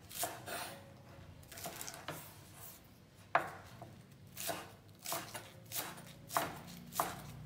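Chef's knife slicing green onions on a bamboo cutting board: about a dozen sharp knife strokes knocking on the board, unevenly spaced, roughly one or two a second.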